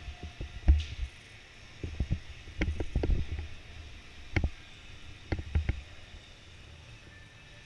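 Irregular knocks and thumps, about a dozen over several seconds, unevenly spaced, over a low steady background.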